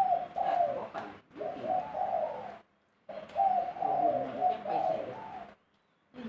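Spotted dove cooing in long phrases of about two and a half seconds each. Each phrase breaks off suddenly into silence before the next begins.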